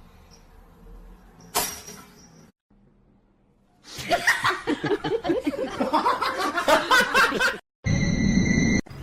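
A single short knock, then a pause, then people laughing hard for several seconds; a brief steady-toned musical sound comes in near the end.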